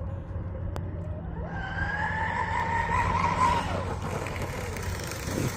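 Animal Twin Cat electric RC catamaran at full throttle, its motor screaming: a high whine that climbs in pitch from about a second and a half in, then drops away near the four-second mark, over steady low background noise.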